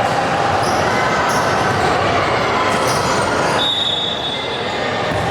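Indoor basketball game noise: steady crowd and court din with ball bounces and shoe squeaks, echoing in a large gym. About three and a half seconds in comes a brief high whistle tone, after which the din eases slightly.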